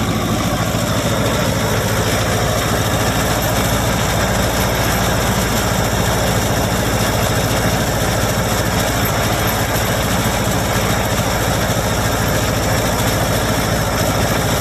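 Ferguson TO-30's 30 hp Continental four-cylinder gas engine idling steadily.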